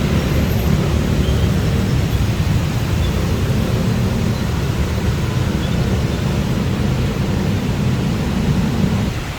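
Steady low rumble of city traffic and heavy rain, easing slightly just before the end.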